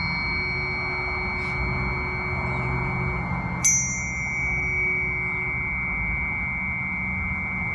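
Planetary tuning forks ringing with a steady high tone; about halfway through another fork is struck, giving a bright ping that fades into the ring.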